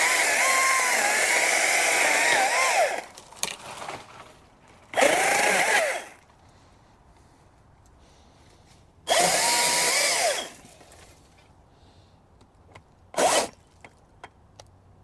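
Echo eForce 56V brushless top-handle electric chainsaw running in short bursts. The motor winds up to a steady whine and winds down each time: a run of about three seconds, two shorter runs, and a brief blip near the end.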